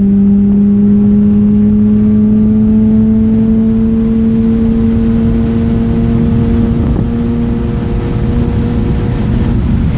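Mazda RX-8's two-rotor Wankel rotary engine running steadily while the car is driven, its note rising slowly in pitch.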